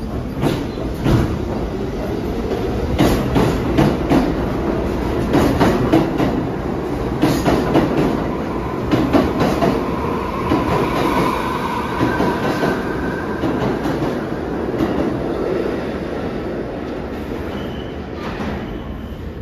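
New York City subway train running through the station, its wheels clattering over the rail joints. It is loudest in the first half, with a thin whine about halfway through, then eases off toward the end.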